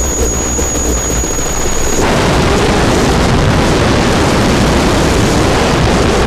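Harsh noise music from modular electronics: a loud, dense wall of distorted noise. A high steady whine cuts off abruptly about two seconds in, and the noise wall thickens from there.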